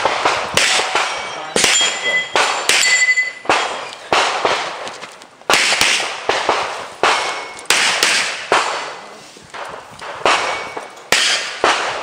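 Pistol shots fired in quick pairs and short strings, with pauses of about a second between strings, each shot echoing. Steel targets ring after hits about three seconds in and again at the end.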